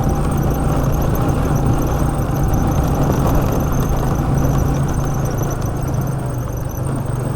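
Motorcycle engine running steadily while riding, its low hum dipping slightly in pitch about halfway through, with wind rushing over the microphone.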